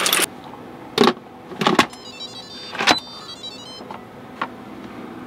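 Dry pasta rattling out of a box into an Instant Pot stops right at the start. Then come a few sharp knocks and clicks as the pressure cooker's lid is handled and put on, with a faint run of high chime tones in the middle.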